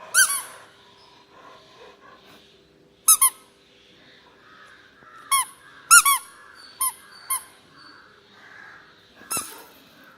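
Squeaky dog toy being squeezed by a black Labrador's jaws, giving about eight short, high squeaks, several in quick pairs, with pauses of a second or more between.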